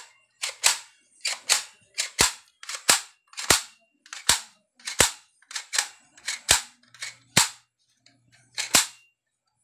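Plastic toy air gun being worked and fired over and over: sharp clicks or pops, most in close pairs about a fifth of a second apart, roughly once a second.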